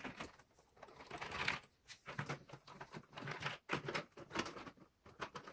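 Phillips screwdriver with an extension bar turning out screws from the plastic underside of a bread machine: irregular short scrapes and clicks of the bit in the screw heads and against the plastic casing.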